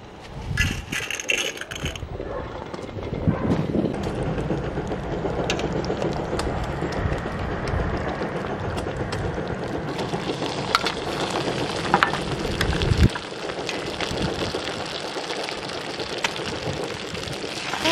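Dry spaghetti rattling against a steel stockpot for the first couple of seconds, then the steady hiss of camp gas-stove burners with diced bacon sizzling on a cast-iron pot-lid griddle. The low rumble drops away suddenly about thirteen seconds in.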